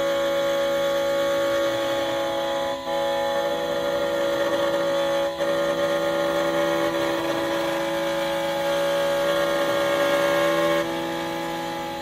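Xhorse Condor XC-Mini Plus key cutting machine milling a Honda key blade: the spindle motor runs with a steady whine, with brief dips about three and five seconds in. The tone shifts and eases near the end.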